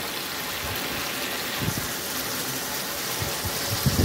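Tomato, onion and chilli masala sizzling steadily in hot oil in a nonstick kadhai, with a few soft knocks, the loudest near the end as an egg is cracked into the pan.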